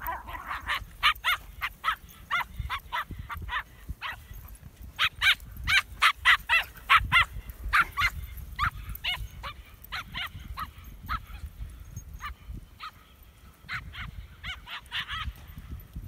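A dog barking over and over in quick runs of sharp, high barks, about three or four a second at its busiest, which is around the middle.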